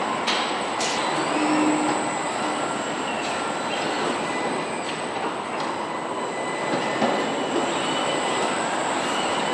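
Truck assembly-line noise: a steady din of machinery with a thin, steady high whine, brief squeals, and a few sharp metallic clanks, about a second in and again near the seventh second.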